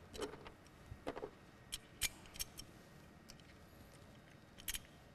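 Faint, irregular metallic clicks and clinks of a hand wrench on the ignition coil's fixing bolt as it is tightened on the engine, the loudest about two seconds in.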